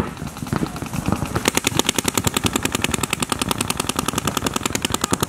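Paintball markers firing in rapid strings of shots across the field. A little over a second in, a fast, steady volley of about a dozen cracks a second takes over.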